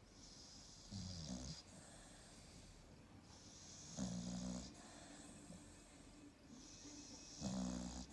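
American Staffordshire Terrier snoring in its sleep: three low snores about three seconds apart, each well under a second long, with a soft hiss between them.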